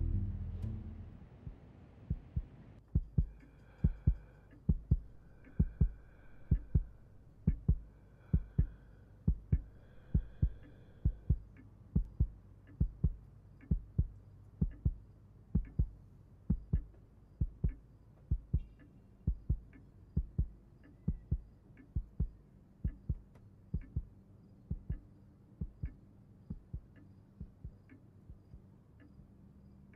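A heartbeat sound effect: paired low thumps about once a second, growing steadily fainter. Soft high ringing tones sound along with it for the first ten seconds or so.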